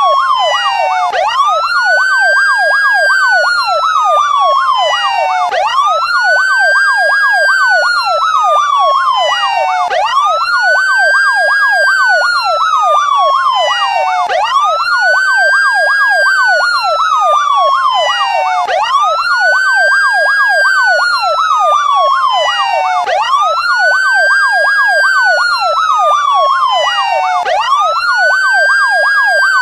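Electronic police siren sounding a wail and a yelp together: the wail sweeps up quickly and falls slowly, repeating about every four and a half seconds, while the yelp warbles fast, about four times a second.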